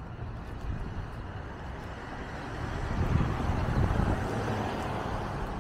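City street traffic: cars passing on the road alongside, a steady rumble that swells louder about three seconds in as a vehicle goes by.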